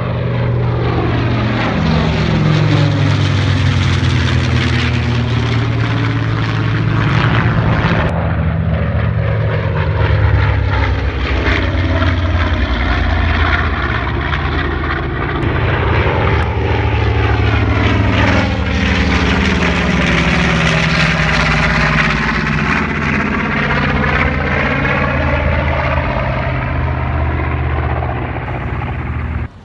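Aircraft flying overhead, a loud continuous engine drone whose tone sweeps slowly down and back up as it passes.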